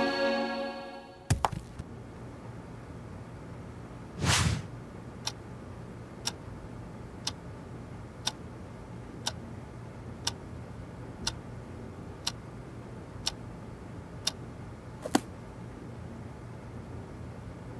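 Music fades out, then a clock ticks steadily once a second for about ten beats over a faint low hum. A short noisy burst comes about four seconds in, and a louder click follows the last ticks.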